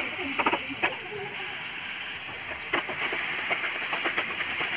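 Tomato pieces sizzling in hot oil in a metal kadai. A spatula stirs and mashes them, with scattered clicks and scrapes against the pan.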